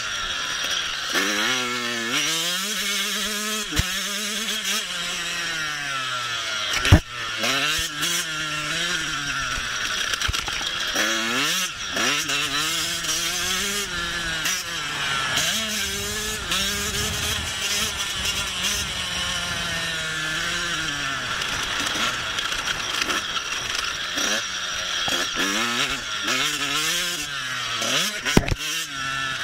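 Motocross dirt bike engines revving up and down as they ride the track, the pitch climbing and dropping again and again through gear changes over a steady high engine whine. A sharp thump about a quarter of the way in, and another near the end.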